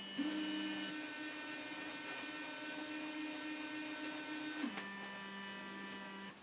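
Electronic powder dispensers (RCBS ChargeMaster units) running their trickler motors as they dispense powder charges into the scale pans: a steady motor whine. Two units overlap: one, already at its slower, lower speed, stops about a second in, while another starts just as the first stops. That second unit drops to the lower pitch of its slow trickle almost five seconds in, as its charge nears the target weight, and stops near the end.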